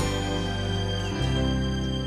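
Background music of slow, sustained chords, with a new chord struck about a second in.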